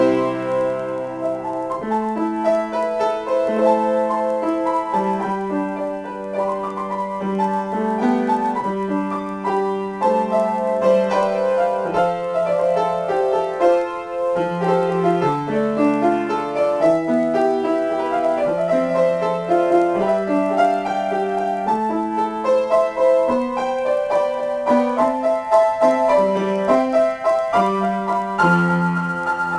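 Solo grand piano improvisation, played without a break: chords under a moving line of many changing notes, mostly in the middle and lower-middle range.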